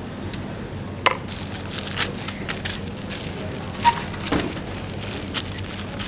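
Knife cutting pineapple: irregular sharp taps and crunches of the blade going through fruit and rind onto a cutting board, louder about a second in and just before four seconds, over steady street background noise.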